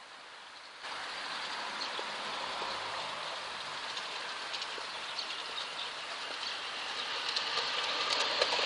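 LGB garden-scale model train running along its outdoor track: a steady rolling rumble of wheels on rail with scattered clicks, growing louder toward the end as the train comes closer.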